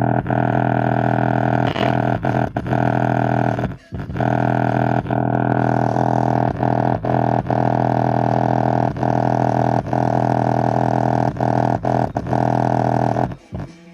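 Subwoofer loudspeaker playing a loud, steady droning bass tone, broken by brief gaps and a deeper dip about four seconds in, and stopping just before the end.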